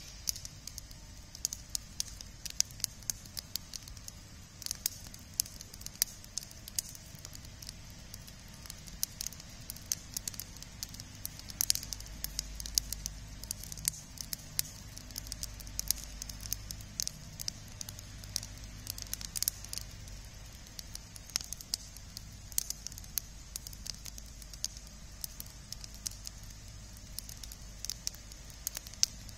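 Campfire of dry sticks and twigs burning in a steel fire ring, crackling with frequent, irregular sharp pops.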